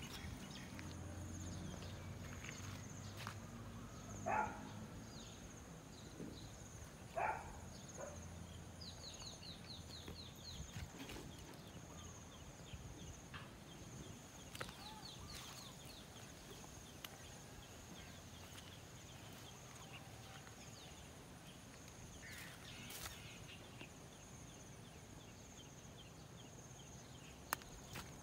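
Quiet outdoor ambience: a steady high-pitched insect drone with runs of fast ticking, two short calls about four and seven seconds in, and light footsteps.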